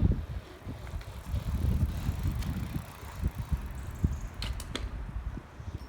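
Nike C100 bicycle being ridden, with a low rumble under it and a few knocks and sharp clicks from the bike about three to four and a half seconds in.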